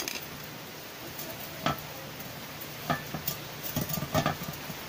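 Glasswool being packed by hand into the steel pipe of a motorcycle exhaust silencer: a few light scrapes and knocks of the fibre and metal being handled, more of them near the end, over a steady low hum.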